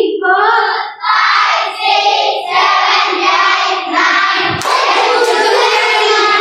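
A group of children singing together, many young voices at once, with a single thump about four and a half seconds in.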